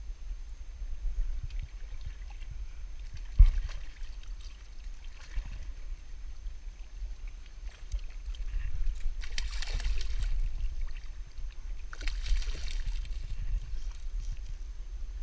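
Steady wind rumble on the microphone, with water sloshing and splashing at the rocks. A single sharp knock comes a few seconds in, and two louder splashy rushes follow, one near the middle and one toward the end.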